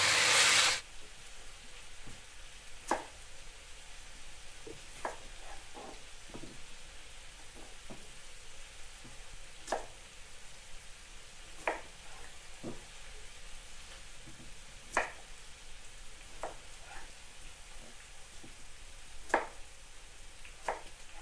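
Pork cubes sizzling loudly in a pan as they are stirred, cutting off under a second in. Then a chef's knife slicing peeled raw potatoes, knocking onto a wooden cutting board about ten times at uneven intervals.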